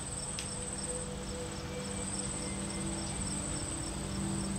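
Insects trilling in a continuous high, pulsing trill, with another chirping at a steady beat of about two or three chirps a second.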